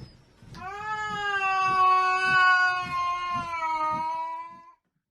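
A cat giving one long drawn-out yowl of about four seconds, its pitch rising at the start, then holding steady and sagging slightly before it stops.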